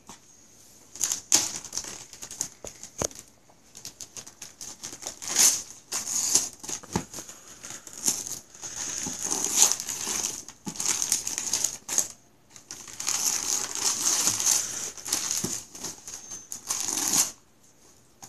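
Gift-wrapping paper being ripped and crumpled by hand as a present is unwrapped: a long run of irregular tearing and crinkling that starts about a second in and stops shortly before the end.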